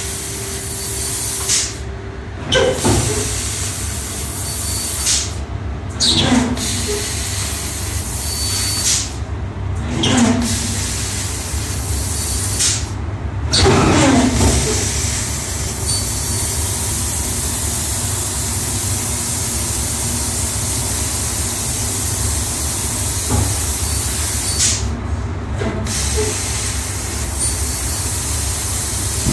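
Laser cutting machine running with a steady hiss, and every three to four seconds in the first half a short falling whine as the Z axis of the cutting head moves. The Z axis is making an abnormal, extraneous noise in operation.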